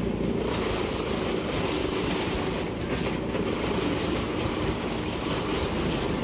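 Brush Bandit wood chipper running at full speed and chipping a log fed into its infeed: a steady engine drone under the continuous hiss and crunch of wood being cut and blown out of the chute.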